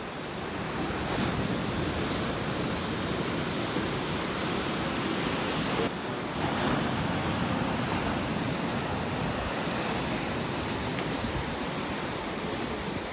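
Ocean surf breaking and washing over a rocky shore: a steady rushing noise, with a brief dip about six seconds in.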